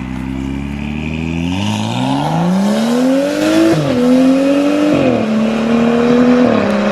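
Car engine accelerating hard: the revs climb steadily, then drop sharply three times as it shifts up through the gears.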